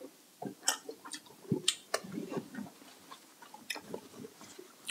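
Close-miked chewing and mouth sounds, with scattered sharp wet clicks and smacks at irregular intervals.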